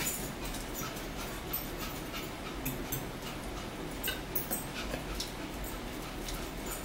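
Eating sounds at a dinner table: scattered light clicks of a metal fork against a plate, with chewing.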